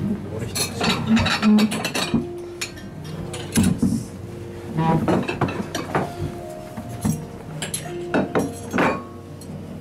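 Ceramic plates and cutlery clinking and knocking as plates are handed over and set down on a bar counter, several sharp clinks throughout, with faint background music.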